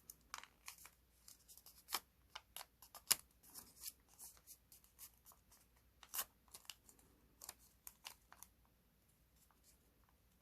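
Faint crisp rustles and short clicks of a square of origami paper being folded and creased by hand, coming at irregular intervals and dying away near the end.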